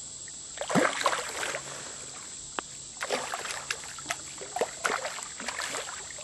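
Hooked carp thrashing and splashing at the surface of shallow creek water, in a burst about a second in and again in a run of splashes from about three to six seconds in.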